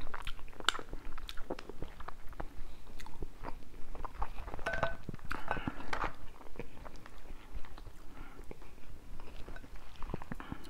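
Close-up eating sounds: wet chewing with many short, sharp clicks and crackles as a sauce-coated lobster tail is picked apart by hand.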